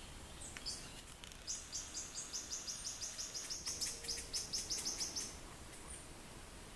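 Small bird singing a fast, even run of short high notes, about six a second for nearly four seconds, after a few scattered chirps.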